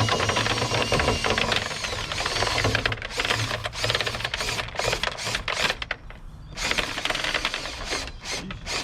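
Rotary dryer-vent cleaning brush spinning inside the vent duct, a fast clattering rattle against the duct walls, pausing briefly about six seconds in.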